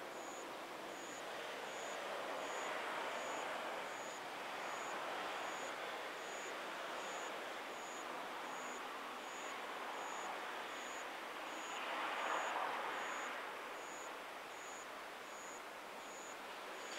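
Distant vehicle noise, a steady hiss that swells and fades, loudest about twelve seconds in. A faint, high-pitched tone pulses evenly about three times a second throughout.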